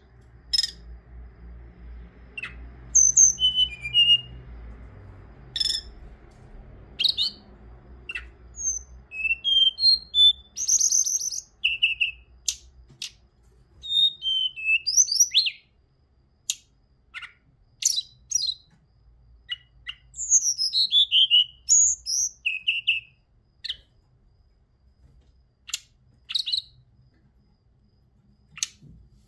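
Hill blue flycatcher (Cyornis whitei) singing: a string of short, high, clear phrases and chirps with brief pauses between them, some notes sliding down in pitch.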